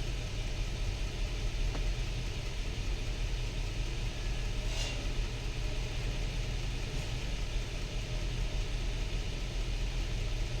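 Nissan Patrol's six-cylinder petrol engine idling steadily. It is running with misfiring cylinders, which the scan tool logs as misfire counts.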